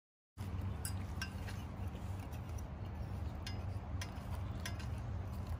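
Scattered light metallic clinks of a fork and a stainless steel saucepan as instant noodles are stirred and the pan is tipped out onto a plastic plate. A steady low hum runs under them.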